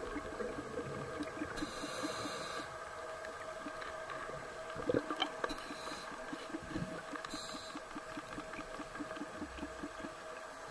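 Faint underwater sound through a camera housing: a steady hum with fast, even light ticking, broken three times by short hisses of a scuba regulator as a diver breathes in.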